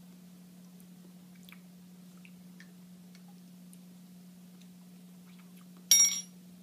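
Faint mouth clicks and smacking as a person tastes a spoonful of hot sauce, over a steady low hum. About six seconds in comes a short, loud hiss of breath.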